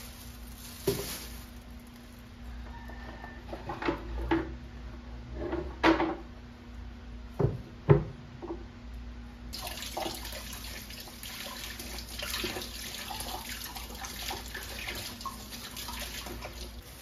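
A few sharp knocks of things set down on a wooden kitchen counter, the loudest as a plastic chopping board is put down. Then, about halfway through, a kitchen tap starts running steadily into a stainless steel sink, with spring onions rinsed under it.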